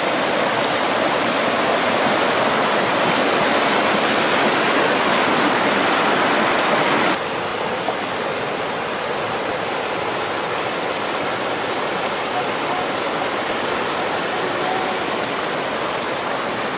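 Fast, shallow stream running over rocks, a steady rush of water that drops a little in level about seven seconds in.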